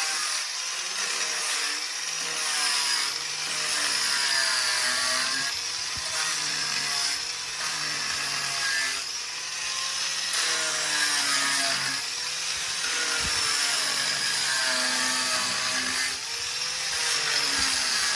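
Electric grinding machine running continuously while grinding dried body filler flush on a wooden chair, its pitch wavering as it is pressed into the work. It stops at the end, the filler now ground roughly level.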